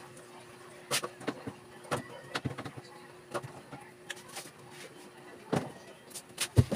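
Irregular clicks and knocks of goods and packaging being handled at a small store counter, with a faint steady hum underneath.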